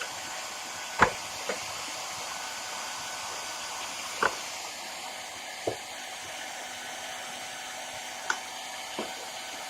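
Hair dryer blowing steadily, with a few short sharp clicks and knocks over it, the loudest about a second in.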